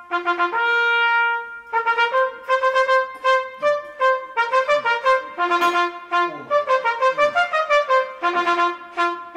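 Trumpet music: a held note, then a busy run of short notes, settling on a long held note near the end.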